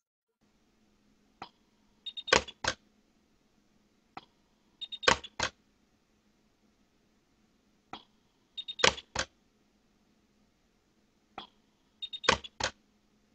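A small mechanism being worked over and over: each cycle is one sharp click followed by a quick cluster of three or four louder clicks with a faint ring, repeated four times about every three and a half seconds, over a faint steady hum.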